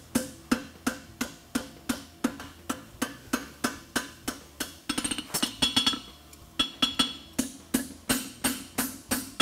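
Hand hammer striking a red-hot 5/8-inch square steel horseshoe bar on an anvil, steady blows about three a second, some ringing off the anvil, with a brief pause about six seconds in. The farrier is flattening the toe bend to keep it from buckling.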